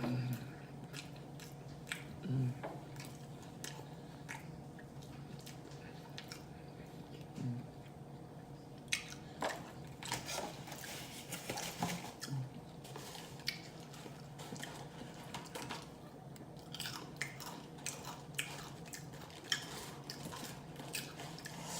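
Close-up chewing and biting of food, with smacking mouth sounds and short crunchy clicks coming in irregular runs. A faint steady hum lies underneath.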